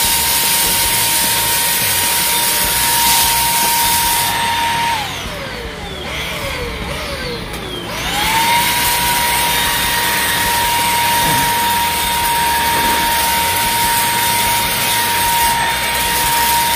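Xiaomi Dreame XR cordless stick vacuum running on its middle suction setting (2), sucking up crushed cornflakes: a steady high motor whine over a loud rush of air. About five seconds in the whine slides down in pitch and quietens, then about eight seconds in it climbs back to full pitch and runs steadily again.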